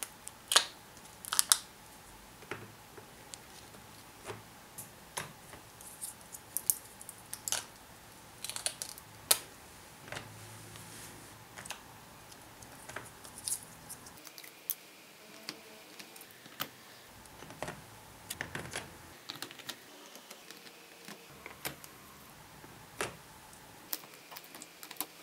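Plastic seal lids being peeled off the paint cups of a Miya Himi gouache palette: irregular sharp clicks and crinkles of thin plastic film against the plastic tray, the loudest about half a second and a second and a half in.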